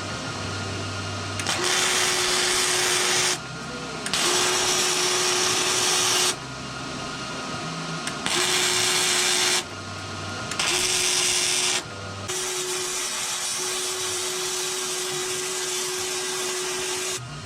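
MIG welding arc crackling and sizzling in five separate runs, the last and longest about five seconds, each with a steady tone under it. Short pauses between runs carry a low hum.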